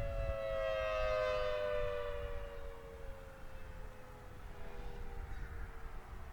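Federal Signal Thunderbolt 1000T outdoor warning siren running with its blower out of action, its two-tone chord sliding slowly down in pitch as the rotor winds down. The upper overtones fade out after about two seconds.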